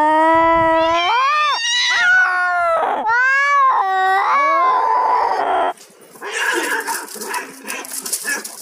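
Cat meowing loudly in three long, drawn-out calls, the first rising in pitch. After a short break comes a noisy scuffle as two cats wrestle.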